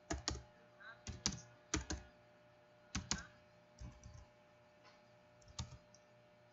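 Typing on a computer keyboard: a dozen or so key clicks in short, irregular clusters, the busiest in the first two seconds and another pair about three seconds in.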